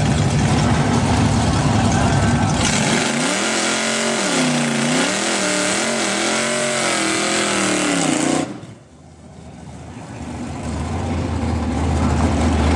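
A drag-race car engine: a steady rumble, then from about two and a half seconds a loud rasping noise with the engine revving up and down again and again. It cuts off suddenly about two-thirds through, and a low engine rumble builds back up near the end.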